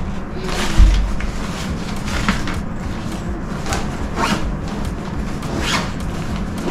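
Fabric packing pouches and cubes being handled and rustled on a rug, in short scattered swishes, with a dull thump about a second in. A steady low hum runs underneath.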